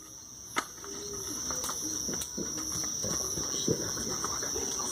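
Crickets trilling steadily in one continuous high-pitched note, with a few sharp clicks, the clearest about half a second in, and faint voices in the background.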